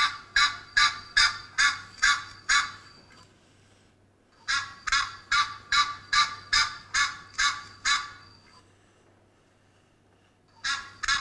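Duck quacking, a recorded sound effect: runs of rapid quacks about two and a half a second, a bout ending about three seconds in, another of about four seconds after a short pause, and a third starting near the end.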